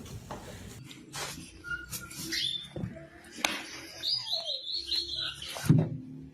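A small bird chirping, with a quick run of about seven high chirps about four seconds in, and a thump near the end.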